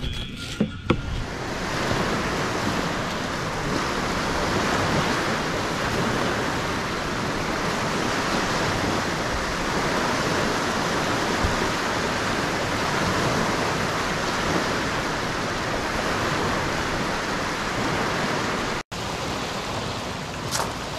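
Wind-driven lake waves breaking and washing onto a sandy shore: a steady rushing, cut off for an instant near the end. A few short knocks in the first second.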